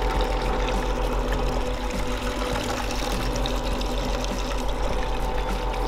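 Hanatsuka stainless rotary pump running, with water pouring and splashing steadily from its outlet, under background music.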